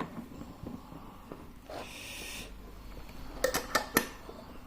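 Light clicks and knocks of a small metal lock being handled and clamped into a bench vise, with a soft hiss about two seconds in and a cluster of sharp metallic clicks near the end.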